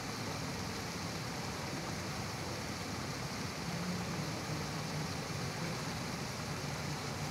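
Steady outdoor background noise: an even hiss with a faint low hum underneath, and no distinct events.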